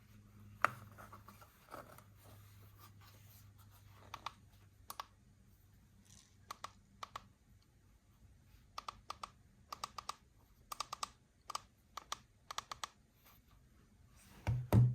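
Light clicks and taps of plastic toys and packaging being handled, coming singly and in small quick clusters, with a louder knock near the end.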